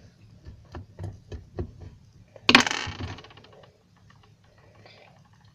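Plastic felt-tip markers clicking and clattering against each other as they are handled: a run of light clicks, then a louder clatter about two and a half seconds in.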